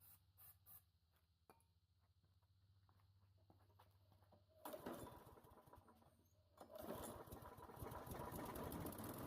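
Walk-behind lawn mower's small engine being started: a few faint clicks, then about halfway through it fires briefly and dies away, and about two seconds later it catches and keeps running, running rough.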